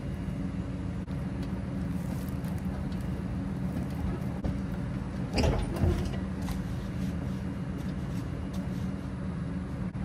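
A vehicle engine idling steadily throughout. About halfway through comes a short strained grunt and a couple of knocks as the car is shoved along the trailer.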